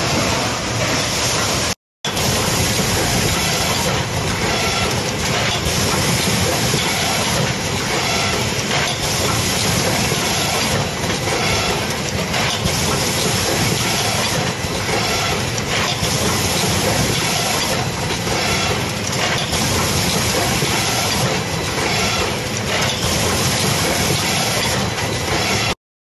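YH009A fully automatic cable crimping machine running: a steady, dense mechanical clatter from its working mechanisms. The sound drops out briefly about two seconds in.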